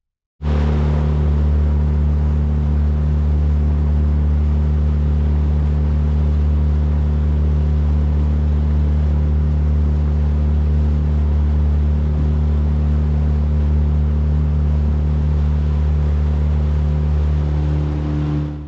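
Small boat's outboard motor running steadily under way, a constant low engine drone with water and wind noise; it fades out near the end.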